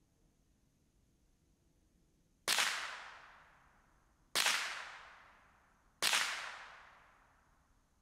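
Three .22 rimfire rifle shots from a Ruger 10/22, a little under two seconds apart. Each is a sharp crack that dies away over a second or more.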